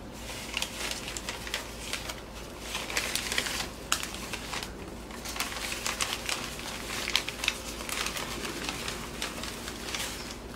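Newspaper wrapping and shredded paper packing crinkling and rustling as a potted plant is unwrapped by hand, in a run of irregular crackles with a few sharper snaps.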